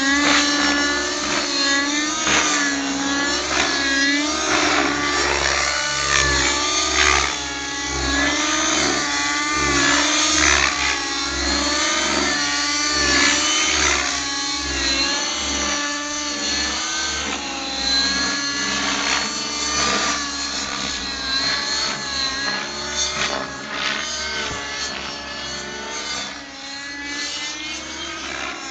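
Velocity 50 radio-controlled helicopter with a YS 56 glow-fuel engine in flight: the engine and rotor whine rise and fall in pitch over and over as it manoeuvres. It grows fainter toward the end as it flies further off.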